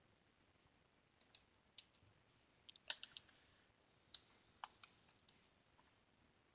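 Typing on a computer keyboard: about a dozen faint, sharp key clicks in uneven clusters, the loudest about three seconds in, as a command is typed at the terminal.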